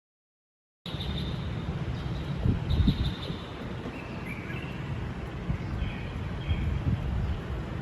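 Outdoor ambience after a brief silent start: a steady low rumble with faint, short high bird chirps a few times.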